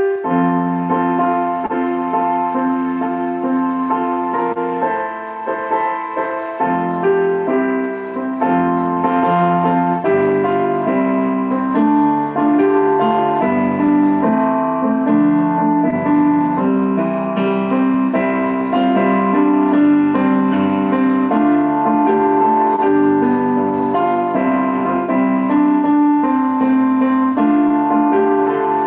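Piano accompaniment playing a song tune in held notes and chords, the melody changing about once a second.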